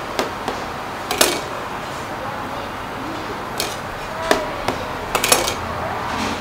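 Metal scraper and cleaver clacking and scraping on a stainless-steel worktable: several sharp knocks, a quick cluster of them about five seconds in, one leaving a brief metallic ring. A steady hiss runs underneath.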